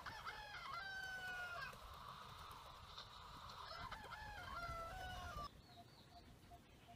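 A rooster crowing twice, each crow about a second and a half long and about three seconds apart, over a steady hiss. About five and a half seconds in, the sound cuts off abruptly to a quiet background.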